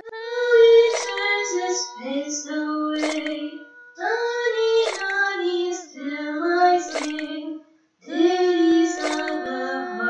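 A cappella female voice singing a slow melody in phrases of about two seconds, her own voice layered in harmony and processed with a sound editing program, with a brief pause near eight seconds. A sharp short click sounds about every two seconds.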